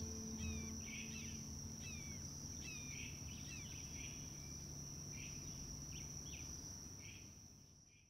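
Outdoor summer ambience: a steady high insect trill with small birds chirping over it, fading out near the end.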